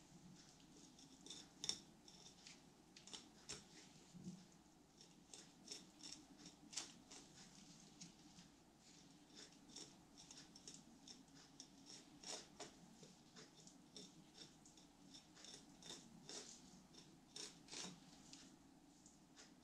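Fillet knife clicking and crunching faintly as it cuts along a corvina's small bones, a run of short, irregular clicks.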